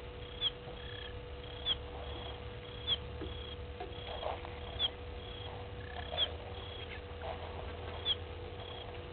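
A small animal's high chirp repeats about every second and a half. Each call is a short level note followed by a quick sharp slur, over a steady faint hum and low rumble.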